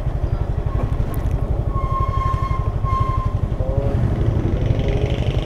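Yamaha Mio scooter's small single-cylinder engine running steadily while riding along at low speed, an even rapid low pulsing throb.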